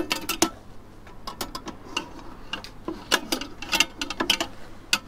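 A run of irregular light clicks and taps from hands handling bacon rashers at the metal rim of a Ninja Foodi air-crisp basket, the sharpest right at the start.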